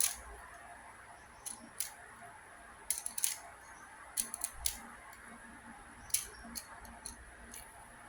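Light, sharp clicks and taps at irregular intervals, some in quick pairs, from a small hand fidget spinner being handled, over a steady faint hiss.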